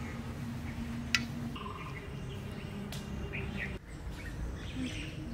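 Small birds chirping now and then over a low steady background, with one sharp clink of a metal serving spoon against a steel pot about a second in.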